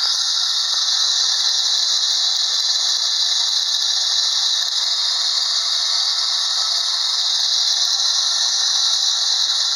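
Vintage Russian tin-plate wind-up bus depot toy running: its clockwork motor whirs with a steady, dense rattle as the little tin buses and cars circle. The owner believes the drive is a chain mechanism.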